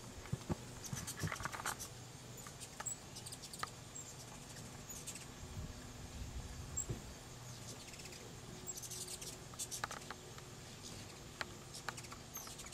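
Hummingbirds chittering: bursts of thin, high, squeaky chips every few seconds, over a steady low hum.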